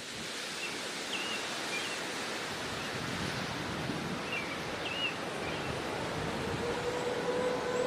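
Steady rush of wind, slowly growing louder, with a few short high chirps scattered through it. Near the end a steady low tone fades in under it.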